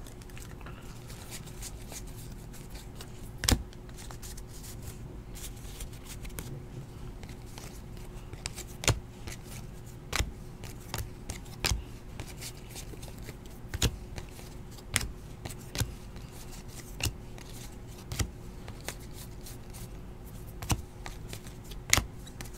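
Donruss basketball trading cards being flipped through by hand, a sharp card snap every second or two over a faint steady hum.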